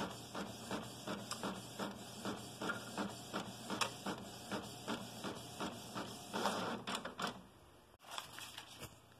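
Inkjet printer printing a page, its print head shuttling back and forth with a regular clicking about three times a second. A louder stretch about six and a half seconds in, then the printing stops.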